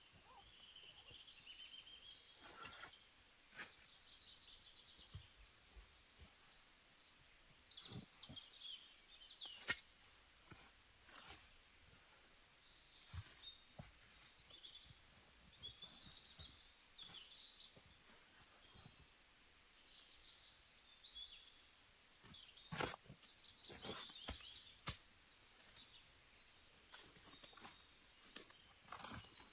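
Faint small-bird chirping and twittering, with scattered sharp clicks and snaps.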